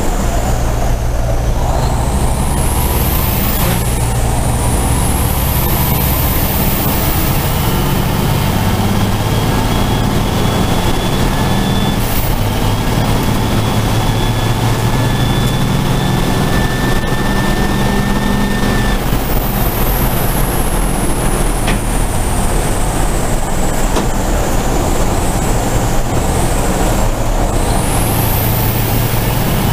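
Race truck's turbo-diesel engine heard from inside the cab, running hard at racing speed. The engine's pitch steps up and down with the driving, and a high whine glides up and falls away several times over it.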